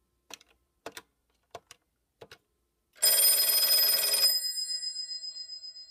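Four quick presses on the ivory Cortelco 2500's touch-tone keypad, dialing another extension. About three seconds in, the black rotary desk telephone's mechanical bell rings loudly for just over a second, then rings out and fades.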